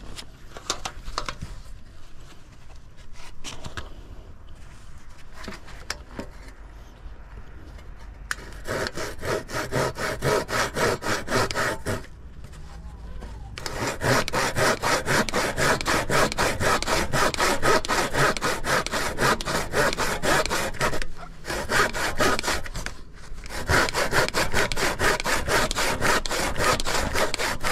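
Handsaw cutting through a timber board, with quiet handling for the first several seconds and then rapid, even back-and-forth strokes in three runs, broken by two short pauses.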